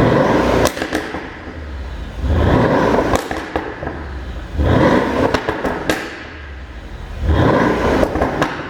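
Mercedes CL63 AMG's twin-turbo V8 revved four times, each blip followed by pops and crackles from the exhaust as the revs drop, the sound of a pops-and-bangs tune.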